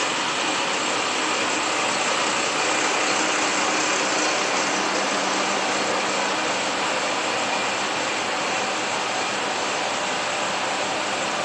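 Sanriku Railway diesel railcar running steadily while standing at the platform: an even engine hum and blower hiss, with no change in pitch.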